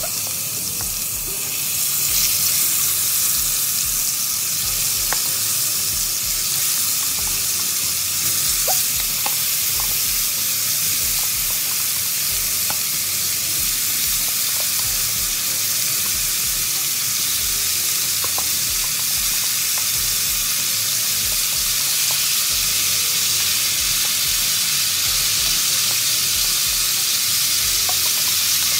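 Oxtail pieces searing in hot oil in a Dutch pot: a steady sizzle that grows louder about two seconds in, with a few faint ticks. The meat is browning before the water is added.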